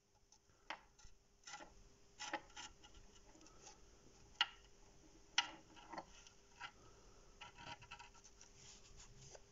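A knife blade scraping and cutting masking tape laid on a steel saw plate: faint, irregular scratches and sharp ticks, the two sharpest about four and a half and five and a half seconds in.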